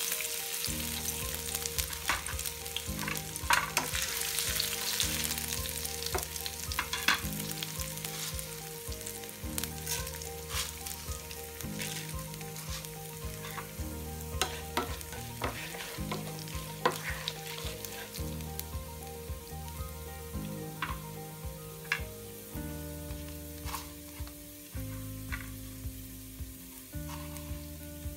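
Chopped ginger and black peppercorns frying in hot oil in a nonstick pan: a steady sizzle scattered with sharp pops and spatters. It is strongest over the first several seconds and eases off somewhat later.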